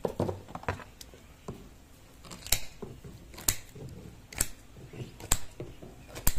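Kitchen shears snipping through a whole fish, one sharp snip about every second from about two and a half seconds in. A few lighter knocks come first.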